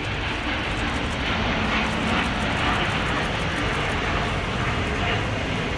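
Airbus A350-900's Rolls-Royce Trent XWB turbofan engines at takeoff thrust as the airliner climbs away, a loud, steady jet engine noise that stops abruptly near the end.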